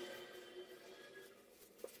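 Near silence: quiet room tone with a single soft click near the end.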